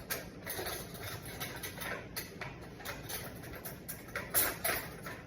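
A fork fluffing cooked rice pilaf in a pot: a run of irregular light clicks and scrapes, a little louder about four seconds in.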